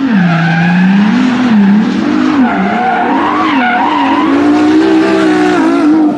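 Sports car engine revving up and down with tyres squealing, the sound of a drift or burnout. It drops away sharply near the end.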